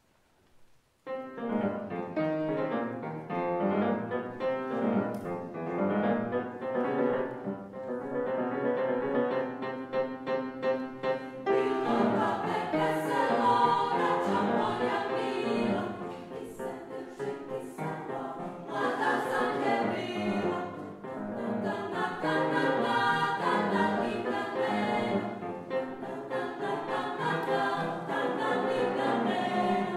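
Women's choir singing with grand piano accompaniment, starting about a second in after a moment of silence and growing fuller about twelve seconds in.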